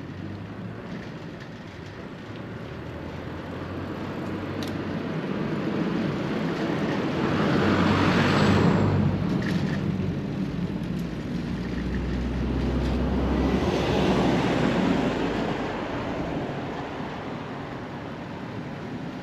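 Two motor vehicles passing close to a bicycle one after the other, their engine and tyre noise swelling and fading away; the first is loudest about eight seconds in and the second about fourteen seconds in.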